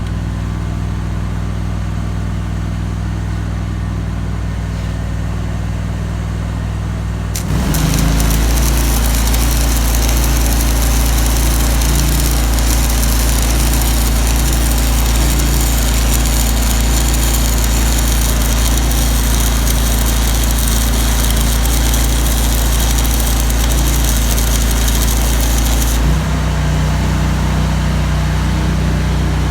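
Engine-driven welder-generator running, then about seven seconds in a stick-welding arc is struck with a 3/16 in 5P+ (E6010) rod: a loud, steady crackling hiss over the engine, which takes the load and drops in pitch. The arc breaks off suddenly near the end and the engine runs on alone.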